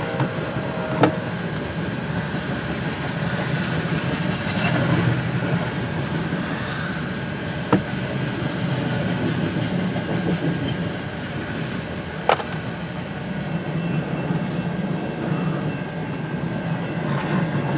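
CN freight train rolling past, its cars making a steady rumble of wheels on rail, with three sharp clicks spread through it.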